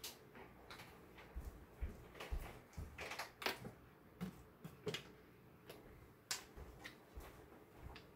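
Scattered light clicks and knocks of kitchen containers and utensils being handled on a countertop, with a couple of sharper knocks about three and a half and six seconds in.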